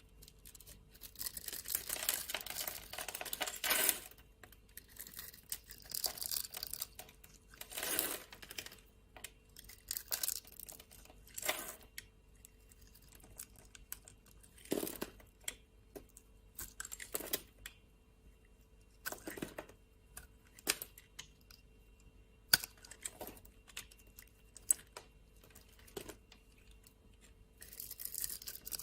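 Bar soap being chopped with a knife: a longer crumbly crunching stretch in the first few seconds, then a string of single crisp cuts spaced a second or two apart.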